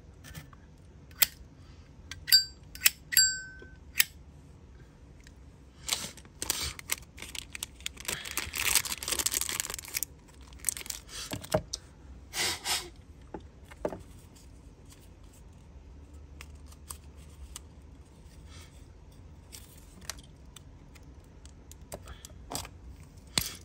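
Sharp metallic clicks and clinks from a Zippo lighter being handled. A few of them, about two to three seconds in, carry a short high ringing ping, and there is a stretch of scraping and rustling around the middle.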